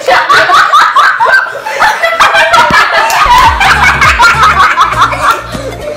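Loud laughter from girls, a quick run of high repeated laughs. About three seconds in, music with a heavy bass beat comes in underneath.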